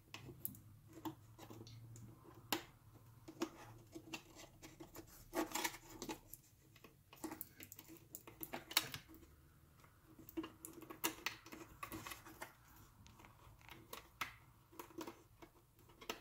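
Scattered small clicks, taps and scrapes of fingers working the LED backlight cable into its connector on an iMac's inverter board, with the sharpest click a little under nine seconds in.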